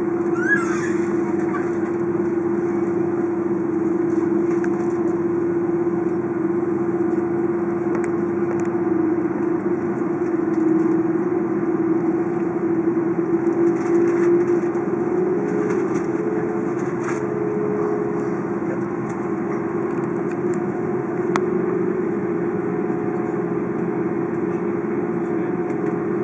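Steady cabin drone of an Airbus A330 on the ground with its engines at idle, heard from inside the cabin: an even rushing hum with one constant low tone.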